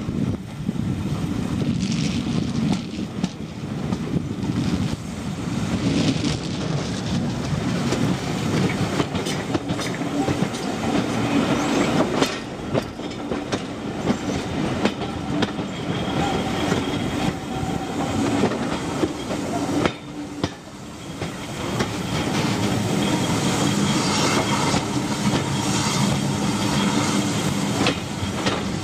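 Railway carriage wheels clattering over rail joints as the train runs along, heard through an open carriage window with a rush of air.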